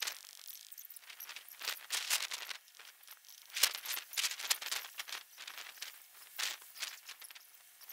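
Nylon tent fabric rustling and crinkling in irregular bursts as it is spread out and pulled into place, with a single sharp knock about three and a half seconds in.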